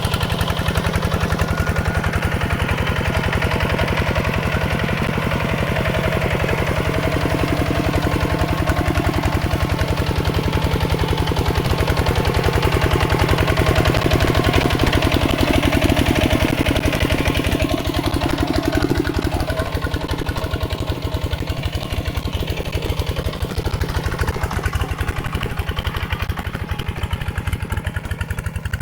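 Mini tractor's single-cylinder diesel engine running steadily with a fast, even chugging, a little quieter in the last third.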